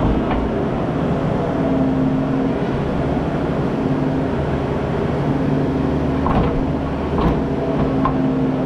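Engine of a farm machine running steadily while hauling hay bales, its speed stepping up and down a little, with a few clanks and rattles about six to eight seconds in.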